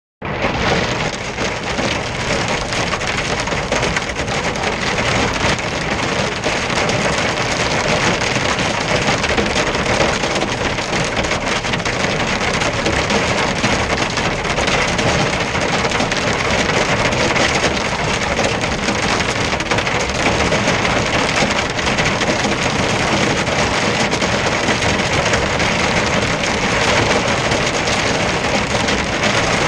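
Hail and heavy rain pelting a truck's windscreen and cab, a steady dense clatter of countless small hits, heard from inside the cab.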